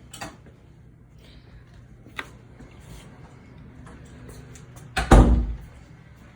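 A door being shut with a loud thud about five seconds in, after a couple of lighter knocks.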